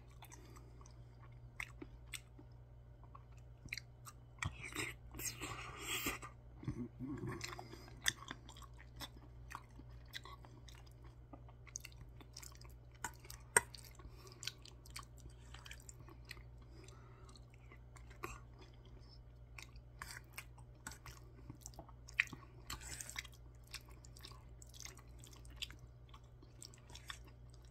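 Close-up eating sounds: wet chewing of mouthfuls of soft curry rice mixed with spicy canned tuna, with a metal spoon clicking and scraping in a stainless steel bowl between bites, over a steady low hum.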